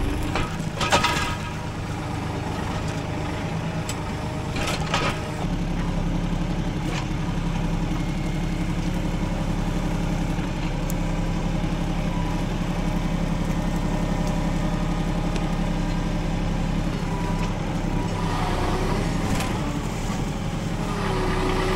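Tractor engine running steadily, with two sharp knocks, one about a second in and one near five seconds.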